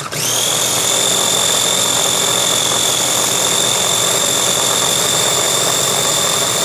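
Ninja food chopper's motor running steadily with a high whine, puréeing peas and olive oil into a smooth dip. It cuts out for a moment at the start, then spins straight back up to full speed.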